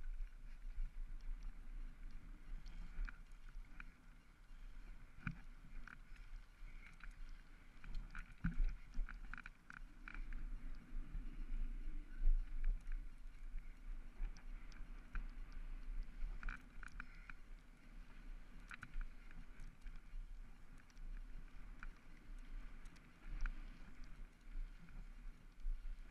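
BMX bike ridden on a tarmac track, heard from a handlebar-mounted GoPro: steady wind rumble on the microphone and tyre noise, with frequent irregular rattles and clicks from the bike.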